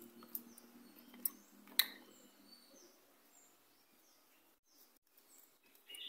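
A few light clicks and taps, the loudest a little under two seconds in, from handling a keypad phone's circuit board and display ribbon while soldering the display pins. Faint bird chirps sound in the background.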